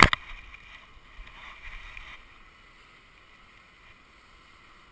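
Handling noise on a GoPro strapped to a dog's back: a sharp knock against the mount at the start, then rubbing and rustling against the housing and the dog's fur that fades out about two seconds in.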